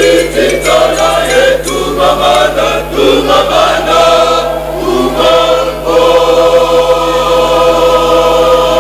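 Church choir singing, with sharp rhythmic beats in the first few seconds, then settling into a long held chord from about six seconds in.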